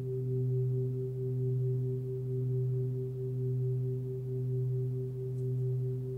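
A 28 cm hand-hammered singing bowl tuned to about 126 Hz (B) rings steadily, a low hum with fainter higher overtones that waver in level about once a second.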